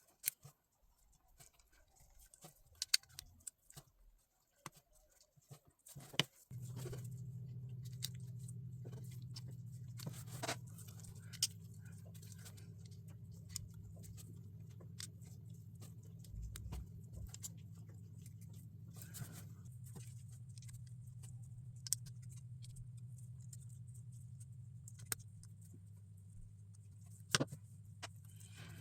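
Small clicks and rattles of plastic LEGO pieces being handled and pressed together. A steady low hum comes in about six seconds in.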